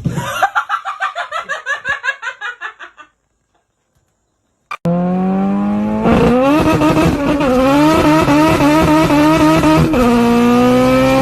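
A rapid run of short, high chirping pulses, about four a second, for the first three seconds. After a brief gap comes a loud car engine accelerating hard: its pitch climbs, drops back at a gear change and climbs again.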